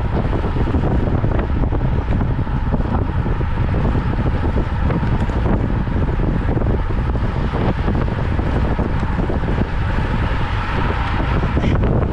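Wind buffeting the microphone of a camera carried on a moving road bike: a steady, loud rumble of wind noise.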